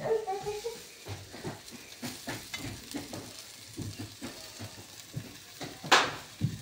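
A spoon stirring and scraping pork frying in a stainless steel pot, in short irregular strokes over a faint sizzle. About six seconds in the spoon strikes the pot with one loud clank.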